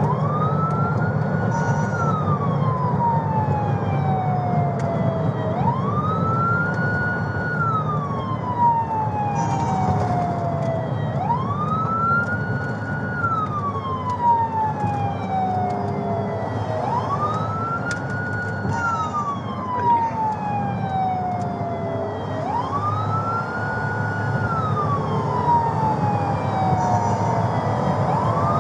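Police car siren on a wail cycle: each cycle rises quickly, holds briefly at the top, then falls slowly, repeating about every five and a half seconds. It is heard from inside the pursuing patrol car, over the car's engine and road rumble.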